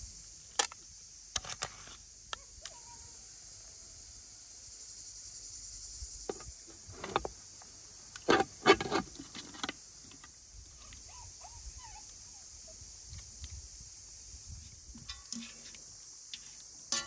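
Metal cookware clinking and knocking as a ladle, steel pots, a steamer insert and a colander are handled, with a cluster of louder knocks just past the middle. A steady high insect chorus of crickets drones throughout.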